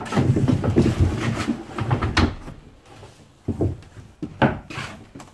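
Irregular bumping and rumbling for about two seconds, then a few sharp knocks, as of wood being moved and struck.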